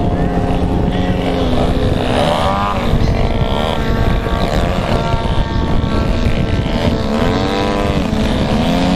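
Several radio-control aerobatic airplanes' engines running at once, their pitches sweeping up and down in overlapping arcs as the planes manoeuvre and change throttle.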